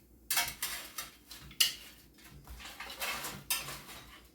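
Metal tongs clinking and scraping against the air fryer basket and a plate in a series of sharp, irregular clicks, the loudest about a second and a half in.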